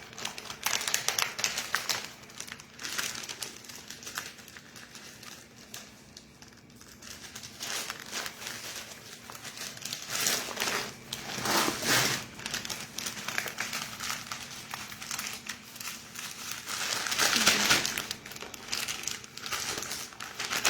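A plastic packaging bag crinkling and rustling as a sofa cover is stuffed back into it, quieter for a few seconds, with louder bursts of handling about halfway through and near the end.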